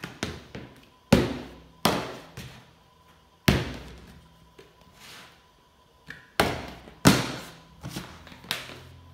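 Plastic canisters, a Clorox wipes canister and a plastic tub, being brought down and landing on a ping-pong table: a string of sharp thuds, each fading out, with a quiet gap in the middle.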